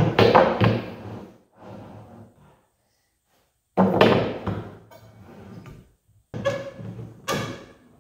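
Long steel angle drawer track knocking and scraping against a plywood divider and its bolted bearing rollers as it is fitted in place. There are knocks with short ringing at the start, a heavy clunk about four seconds in, and a cluster of sharper knocks near the end.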